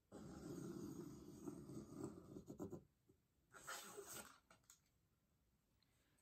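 Faint scratching of a pencil drawing a line on pattern paper for a couple of seconds, then a short swish of a plastic grid ruler being slid across the paper.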